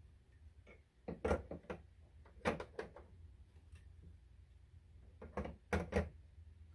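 Plastic egg-turner cradles of a Brinsea Ovation 56 incubator clacking and knocking as they are set into the tray one after another: a few sharp clacks in small groups.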